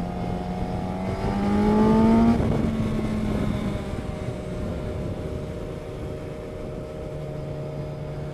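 Motorcycle engine of the onboard bike, rising in pitch as it accelerates and peaking about two seconds in, then dropping with an upshift and settling into a steady cruise, with a slight further drop in pitch near the end. Road and wind rush run underneath.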